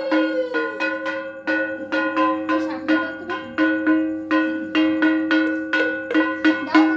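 A metal hand bell rung over and over in worship, about three to four uneven strokes a second, each stroke's ringing running on under the next.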